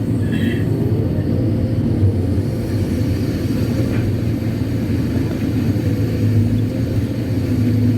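Kobelco SK200-8 Super X excavator's diesel engine running steadily as the machine works, heard from inside the operator's cab.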